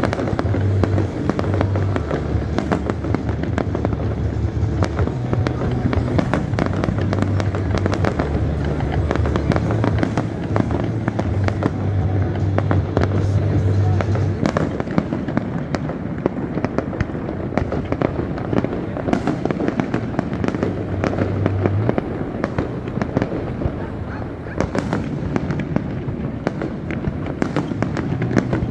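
Fireworks display: a continuous rapid crackle of aerial shells bursting, with bangs. Music with held low bass notes plays underneath, dropping away about three quarters of the way through.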